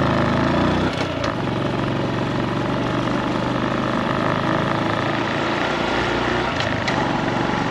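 Honda Super Cub's single-cylinder four-stroke engine running while under way. About a second in, the engine note drops, and it carries on at lower revs.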